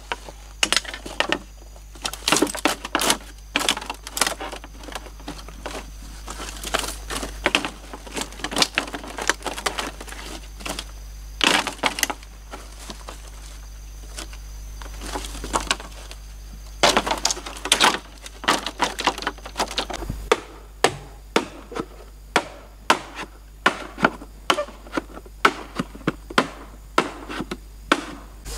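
A knife chopping into and splitting a thick green bamboo pole lengthwise: sharp cracks and knocks as the culm splits. From about two-thirds of the way in, the strikes fall into a steady run of about two a second.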